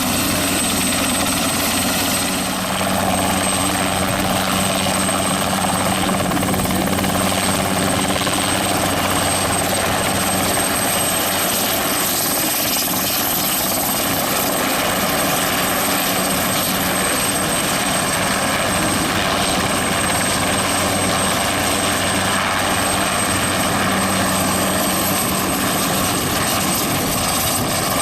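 Helicopter running steadily, its rotor and engine noise holding a constant level throughout.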